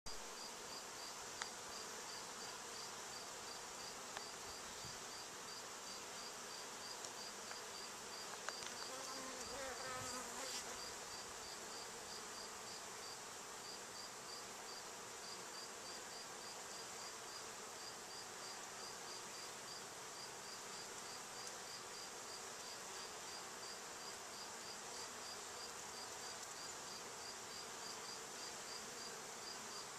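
Bees flying at the entrance of their nest in a hollow tree, a steady faint hum, with one bee buzzing close past about ten seconds in. A faint high chirp repeats a few times a second underneath.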